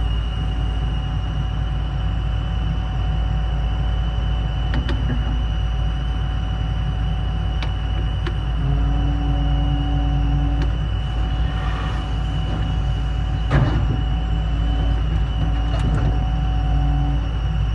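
Hitachi ZX350H-3 excavator heard from inside its cab: the diesel engine runs steadily under a constant high whine, with a lower humming note that comes and goes as the bucket hydraulics are worked. A few sharp knocks, the loudest a little past the middle.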